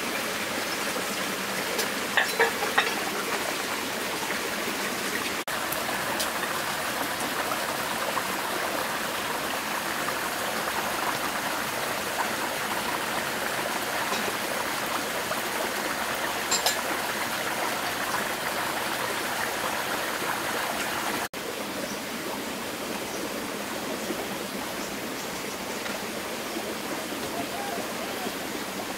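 Steady rushing noise with a few sharp clicks about two seconds in and again a little past the middle.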